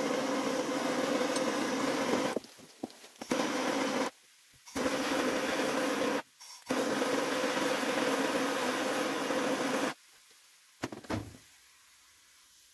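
Hand-held gas torch burning steadily as it heats a copper pipe joint for soldering, a continuous hiss with a low rumble. The hiss breaks off briefly three times, then stops about ten seconds in, followed by a few faint clicks.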